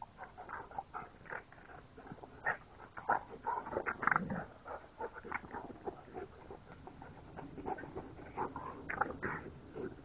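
Puppies play-fighting with a large adult dog, with many short, irregular yips and whimpers.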